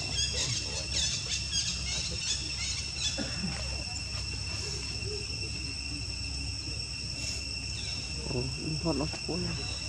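Steady high-pitched drone of an insect chorus, held as a few unchanging tones, with faint voices underneath and a short louder burst of vocal sound near the end.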